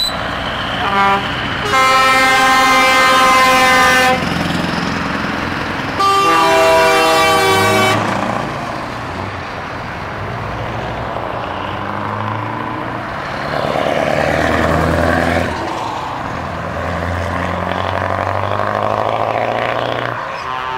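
Truck horns sounding: a few short toots, then two long blasts of several stacked tones, each about two seconds. After them a Scania V8 diesel truck engine rumbles past, swelling about two-thirds of the way through.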